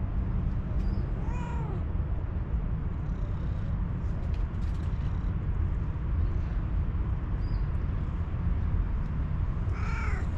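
A hungry calico cat meowing twice, one short meow about a second and a half in and another near the end, each rising and falling in pitch. A steady low rumble runs underneath.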